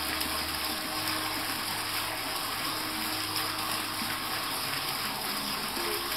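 Steady rushing of water running into a garden fish pond.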